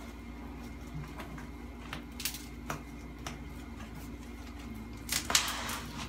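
Plastic wrapping on a boxed desk being handled: scattered light clicks and taps, then a louder rustle about five seconds in, over a steady low hum.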